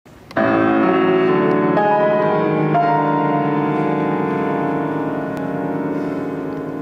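Grand piano and cello playing a slow classical piece. The music comes in with a full chord just after the start, changes chord twice in the next few seconds, then holds and slowly softens.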